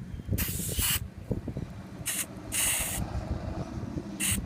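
WD-40 aerosol can sprayed inside a shoe in four short hissing bursts, the first and third longer than the others.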